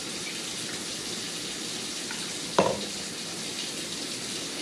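Steady hiss, with one sharp knock about two and a half seconds in as a metal can of tomato sauce is tipped and knocked against the rim of a stainless steel stockpot.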